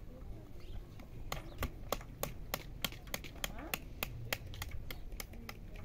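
A knife cutting into pomegranates over a metal bowl: sharp, irregular clicks at about four a second, starting a little after a second in.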